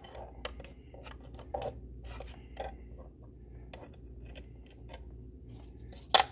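Small plastic clicks and taps as the brushless motor and its leads are handled and settled on a plastic digital scale, with one sharper click near the end, over a steady low hum.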